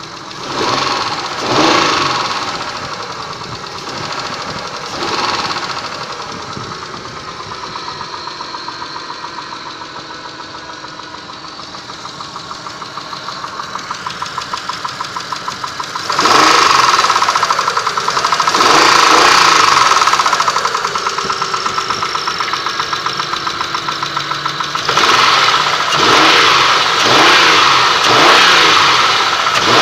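Mitsubishi 6A13 2.5-litre V6, warmed up, idling with a fast rhythmic knock. It is revved up several times: briefly near the start, held higher for a few seconds about halfway, then a run of blips near the end.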